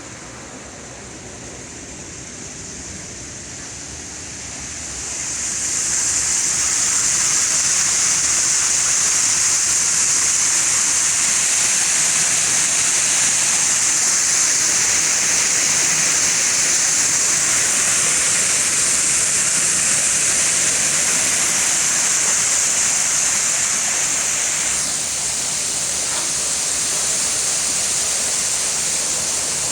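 Water rushing and churning in a water-treatment clarifier/filter tank as the beads are floated over, a steady loud hiss. It swells up about five seconds in and eases a little near the end.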